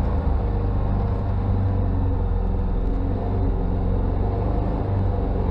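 Side-by-side UTV engine running steadily at low revs, with no revving or gear changes.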